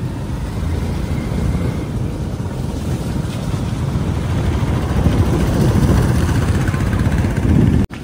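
Vehicle on the move with heavy wind rumble on the microphone, growing louder in the second half and cutting off suddenly just before the end.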